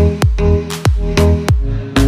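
Background electronic music with a steady kick-drum beat over held bass and synth chords.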